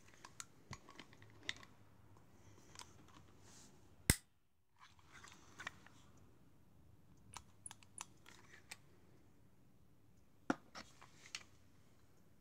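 Scattered small clicks and rattles from a WE Colt 1911 Government airsoft pistol being handled, its metal parts clicking as it is turned over and worked by hand. One sharp, louder click about four seconds in, and a quick cluster of clicks near the end.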